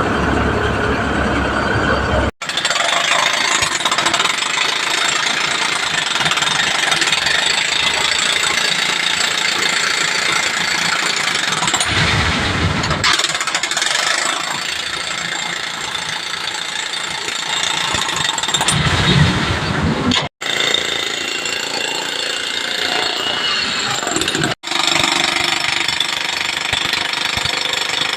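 Loud, dense construction machinery noise, steady, dropping out abruptly three times.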